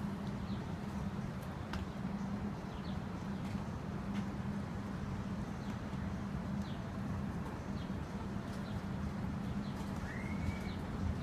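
Steady low hum of outdoor background with scattered faint bird chirps, and a short rising bird call near the end.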